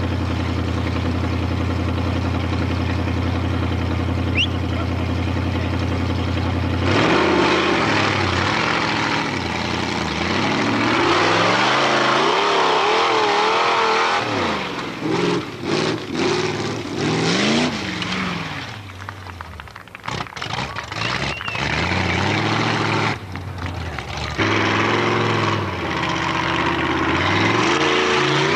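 Formula Offroad hill-climb car engine idling steadily at the start line, then revving hard in repeated rising and falling surges as the car claws up a sandy slope. Partway through the engine sound drops away in patches, and near the end another car's engine revs up the climb.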